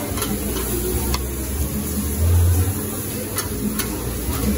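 Food sizzling and being stirred on a Mongolian grill's flat-top griddle, with a few sharp clicks of utensils and a low rumble that swells about two seconds in.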